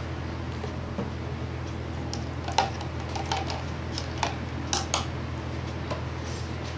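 Metal teaspoon clinking and scraping against the inside of a clear plastic jar as detergent is stirred into water, with a cluster of sharp clinks in the middle. Near the end the spoon is set down on the table. A steady low hum runs underneath.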